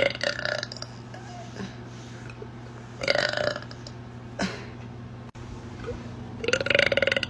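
A woman burping three times, about three seconds apart. The last burp is the longest and has a rattling sound.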